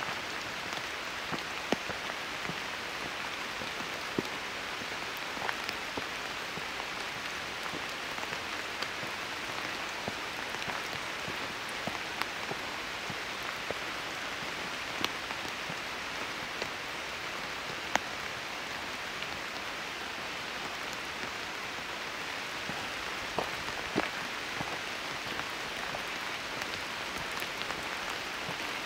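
Steady rain falling on forest leaves and undergrowth: an even hiss with scattered sharper drop hits every few seconds.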